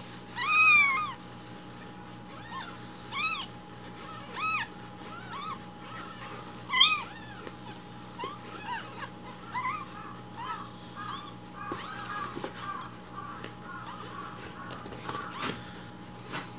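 Baby kitten mewing: short, high, arched cries, a few loud ones spaced a second or two apart, then from about eight seconds in a run of quicker, quieter mews.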